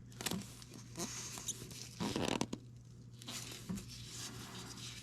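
Intermittent scraping and rustling of hand work around a tractor's oil filter, in short bursts with the loudest about two seconds in.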